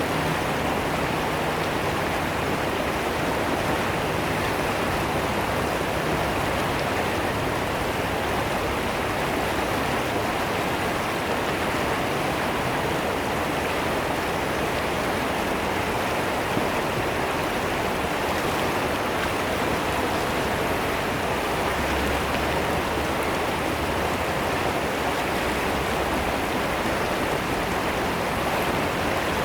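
Fast-flowing river water rushing and splashing in a steady, unbroken wash.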